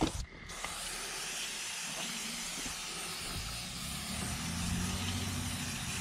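Aerosol spray can hissing in one long, steady spray of about five seconds.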